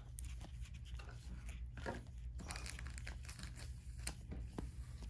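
Glossy trading cards, some in plastic penny sleeves, being flipped and shuffled by hand: a run of short, irregular scrapes and plastic crinkles with small clicks.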